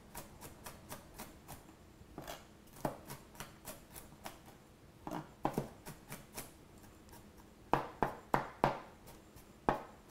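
Chef's knife mincing garlic cloves on a white plastic cutting board: a run of quick, irregular chops, faint at first, with the loudest strikes in a cluster about three-quarters of the way in.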